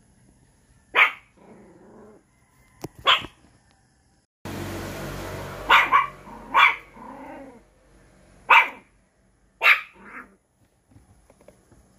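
A dog barking repeatedly, single barks and a quick pair, spaced one to two seconds apart. A steady rushing noise comes in for a few seconds in the middle.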